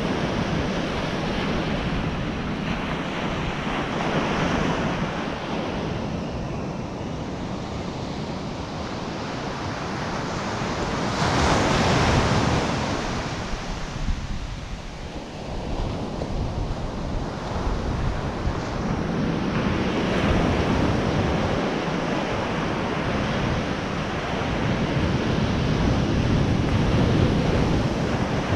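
Ocean surf breaking and washing up a sand beach, with wind buffeting the microphone. The wash rises and falls, loudest about twelve seconds in.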